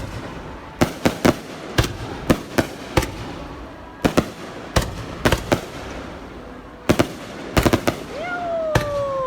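Fireworks bursting overhead: sharp bangs in irregular clusters of two to four. Near the end a whistling tone slides downward for about a second.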